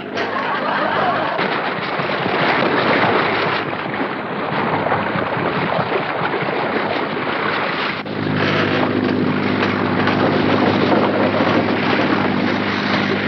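Storm-at-sea sound effects: wind and heavy waves around a boat pitching in rough water. About eight seconds in, a steady motor drone comes in under the noise.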